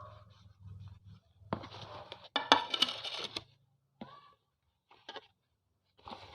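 Close handling noises: packaging rustling and tearing, with sharp clicks and light clatter, in bursts. A dense burst comes about a second and a half in, and another starts near the end.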